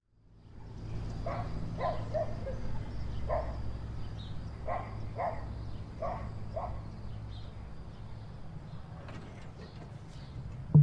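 Outdoor ambience: a steady low hum under a series of short animal calls, about eight of them, often in pairs, over the first seven seconds, then only the hum.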